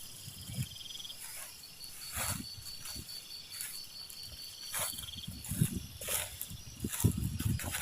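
Night insects, crickets or similar, chirping in a steady high pulsing trill, with scattered rustles and a few low thumps in the second half.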